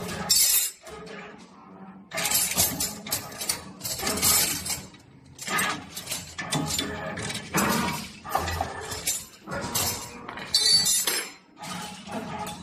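Repeated irregular metallic clinks and clatters of bent metal wire pieces knocking against each other and the flat plate they are set on.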